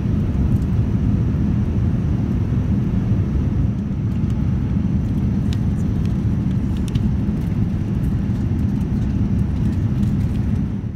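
Steady low rumble and rushing air of a Boeing 787-9's economy cabin in flight, with a few faint crinkles from a foil snack packet being handled around the middle.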